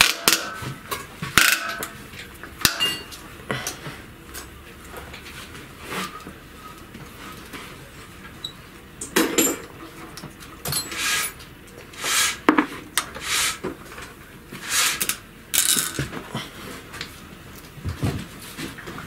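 Metal-on-metal clinks and clicks of an open-end wrench working the hex bolts of the adapter plate on a Shtenli walk-behind tractor engine as they are unscrewed. The clinks come irregularly, a few close together at times.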